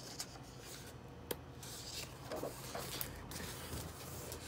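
A page of a hardcover picture book being turned by hand: soft rubbing and swishing of paper, with a light tap about a second in.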